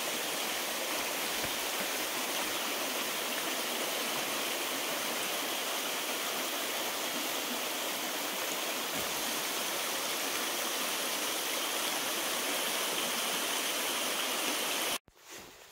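Shallow, fast-flowing river rushing over rocks and rapids in a steady, even roar of water. It cuts off abruptly near the end.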